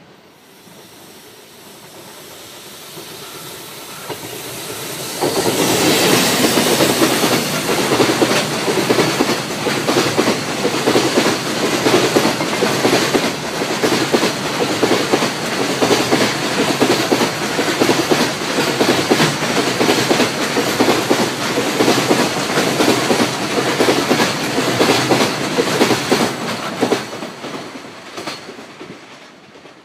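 Container freight train hauled by an EF65 electric locomotive approaching and running past. It grows louder for the first few seconds and jumps up sharply about five seconds in as the train reaches the microphone. A long string of container wagons then clatters past over the rail joints in a steady clickety-clack, fading out near the end.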